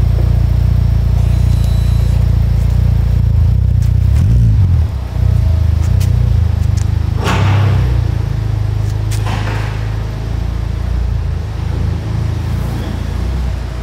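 Exhaust of a 2023 Honda Civic Type R FL5's turbocharged 2.0-litre four-cylinder running through an R1 Titan triple-tip exhaust: a steady, deeper rumble, shifting in pitch briefly about four to five seconds in.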